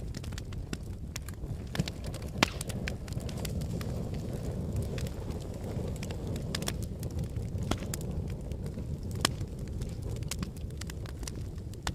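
Wood fire burning in a fireplace: a steady low rumble of flames with irregular sharp crackles and pops, two louder pops about two and a half and nine seconds in.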